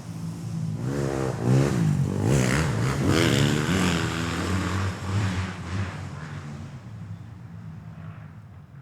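Motorcycle engine revving, its pitch rising and falling in several quick revs over the first few seconds, then dying away steadily toward the end.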